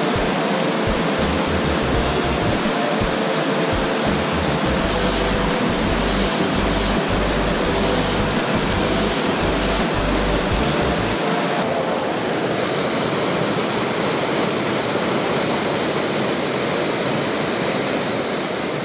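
Steady rush of a small mountain stream pouring through a whitewater chute between rock ledges. The sound is an even, continuous rush whose high end thins a little about two-thirds of the way through.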